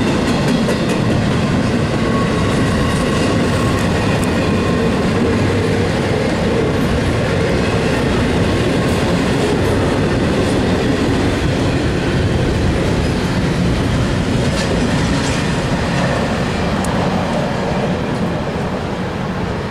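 Double-stack intermodal freight train cars rolling past: a steady, loud rumble of wheels on rail with scattered clicks, easing slightly near the end.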